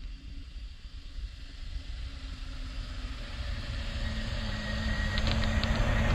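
Mercedes Sprinter 6x6 van driving through deep snow toward the microphone and passing close by. Its engine grows steadily louder as it approaches, with wind on the microphone.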